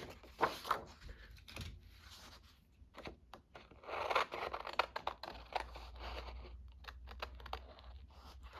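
Paper being handled on a work surface: scattered light taps and clicks, and a longer rasping rustle of paper about four seconds in.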